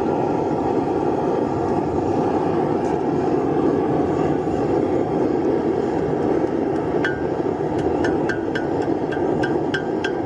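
Propane forge burner running with a steady rush. From about seven seconds in, a hammer strikes hot steel on the anvil, roughly three blows a second, each with a short metallic ring.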